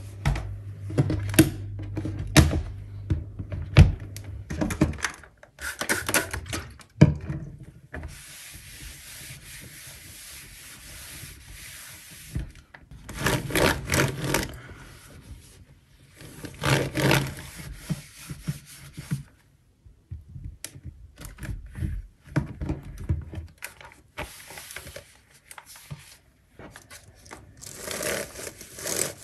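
Microfibre cloth rubbing and wiping over a laptop lid and a computer keyboard in repeated strokes, with short clicks and knocks as the devices are handled.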